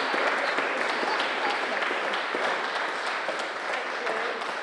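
Audience applause in a church, a dense patter of many hands clapping that slowly fades toward the end.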